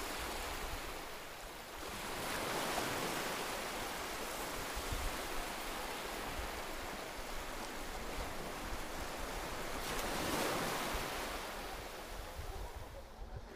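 Lake waves washing onto the shore, a steady rush that swells twice.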